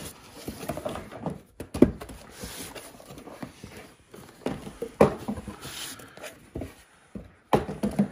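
Small cardboard filler boxes being pulled out of a corrugated shipping carton: irregular scraping and rustling of cardboard on cardboard, with a few sharper knocks, the clearest about two and five seconds in.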